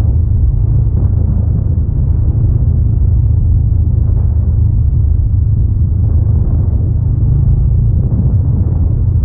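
Honda Rebel 500's parallel-twin engine running at a steady cruise on a dirt road, heard mostly as an even low rumble.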